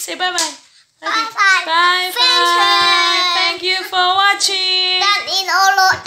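A young child singing in a high voice, holding long notes and sliding between them, with a short break about a second in.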